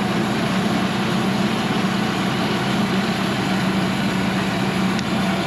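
Kohler diesel engine on a Cook's AC-36 sawmill running steadily, with a faint click about five seconds in.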